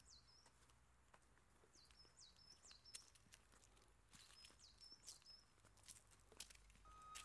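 Faint outdoor ambience: a bird repeats a short high call, a quick downward sweep then a brief flat note, several times, with soft scattered clicks like footsteps on a path.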